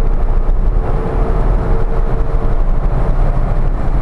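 Cabin sound of a 1991 Subaru Sambar Dias2 supercharged kei van accelerating through its CVT with the engine held near 4000 rpm, over heavy low road and wind rumble from the open sky roof. A steady whine runs along with it and drops out about two and a half seconds in.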